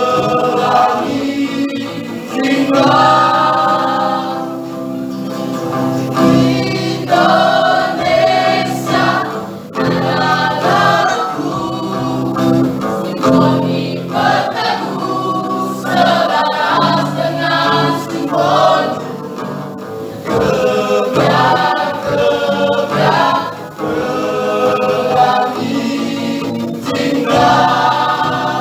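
Small mixed choir of men's and women's voices singing together, phrase after phrase of held notes with short breaks between them.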